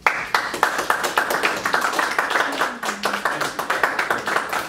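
A small group of people applauding, the clapping starting all at once and going on as a dense, irregular patter of hand claps.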